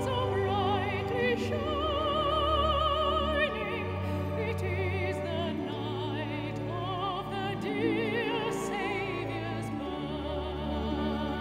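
Classical soprano singing a Christmas song in operatic style with a wide vibrato. A string orchestra accompanies her with held low notes that change every few seconds.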